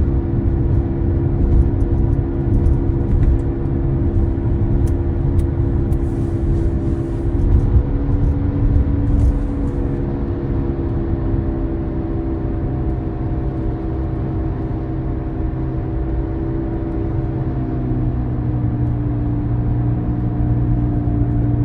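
Tesla Model Y Dual Motor on the move: a low road rumble with a steady whine of several tones that drift slowly in pitch, one stepping down near the end, and a few faint light ticks in the first half.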